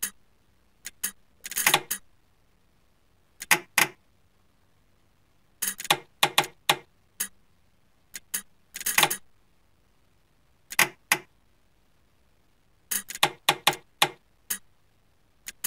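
Relays of a lift control circuit clicking as they switch, in irregular groups of one to four sharp clicks with short pauses between.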